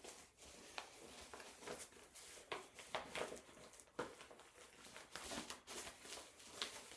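Faint rustling and short, irregular scratchy crackles of a blood pressure cuff being wrapped around an upper arm and fastened.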